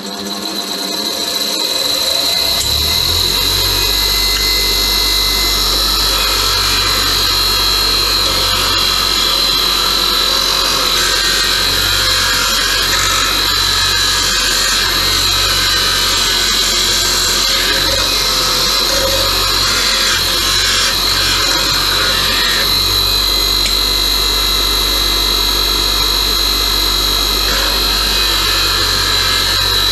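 Titan 200 mm electric bench grinder soft-starting and coming up to speed over the first couple of seconds, then running steadily with a high whine and a low hum. A rusty nut and bolt are held against its spinning wire wheel, which scrubs the rust off with a continuous harsh scraping.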